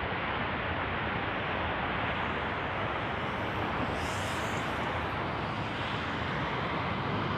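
F-15 fighter's jet engines running at high power on a takeoff roll: a steady, even rushing noise, with a brief high hiss added about four seconds in.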